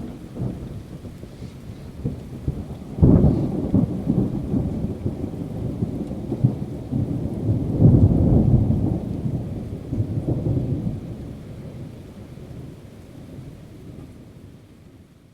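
Thunder: a sharp clap about three seconds in breaks into a long low rumble that swells again a few seconds later, then rolls away and fades out near the end.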